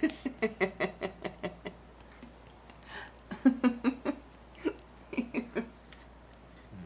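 A person laughing in three short runs of quick, pitched 'ha' pulses, about five a second.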